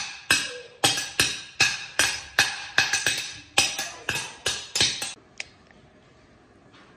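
Music: a quick run of sharp, ringing struck percussion notes, about four a second, that stops about five seconds in, leaving only a faint background.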